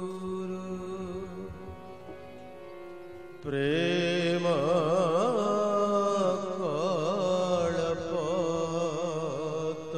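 Devotional hymn: a sustained drone-like accompaniment, then a solo voice entering about three and a half seconds in, singing long held notes with heavy vibrato.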